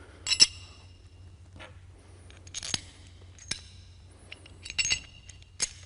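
Sharp metallic clinks with a short ring from bolts, nuts and a hand tool against steel brackets while a valve assembly is being bolted on. The clinks come singly and in small clusters, the loudest about half a second in.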